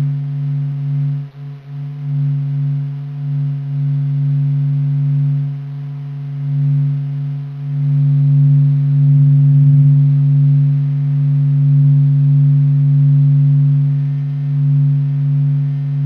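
The sun's vibrations turned into sound, presented as the sound of the sun: a deep, haunting hum that holds a steady pitch and slowly swells and fades in loudness, loudest a little past the middle.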